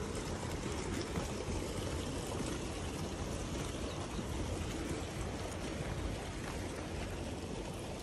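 Shallow stream running over rocks, a steady trickling and rushing of water.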